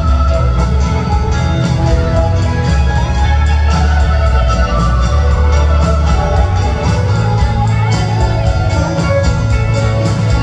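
Rock band playing live in an instrumental passage: strummed acoustic guitar and organ over a heavy, steady bass.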